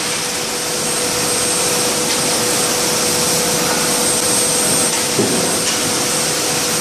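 Steady, loud machinery noise in a forging shop: an even rushing sound with a constant mid-pitched hum and no hammer blows.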